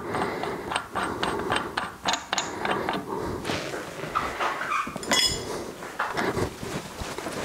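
Light metallic clicks and knocks from working a steering-bearing race puller on a motorcycle steering stem, winding it up to draw the bearing race off. About five seconds in, a metal spanner clinks with a short ring.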